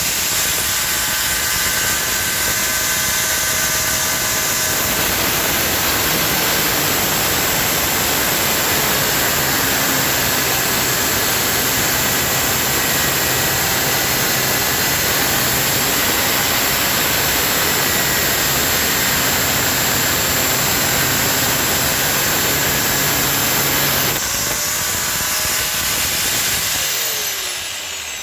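Electric cutting tool grinding through metal, most likely the toilet's closet bolts, throwing sparks; the motor runs steadily under load. The tone changes a few seconds before the end, then the motor winds down with a falling pitch.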